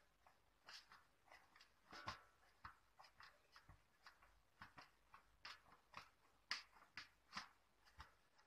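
Faint, irregular soft taps and squishes of hands pressing and spreading a mashed potato, chicken and cheese mixture in a tray, about one or two a second.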